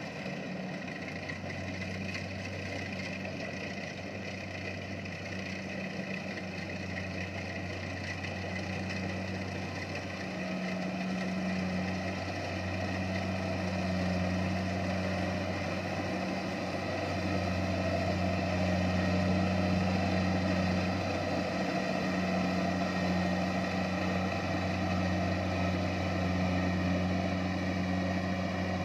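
Kubota rice harvester's engine running steadily with a low hum, growing somewhat louder from about a third of the way in.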